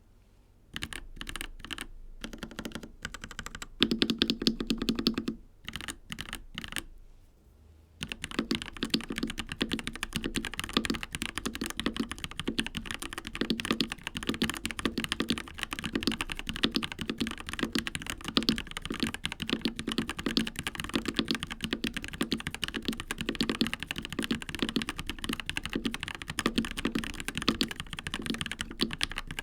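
Yenkee Odyssey mechanical keyboard with Gateron Yellow linear switches being typed on: scattered keystrokes for the first several seconds, then fast, continuous typing.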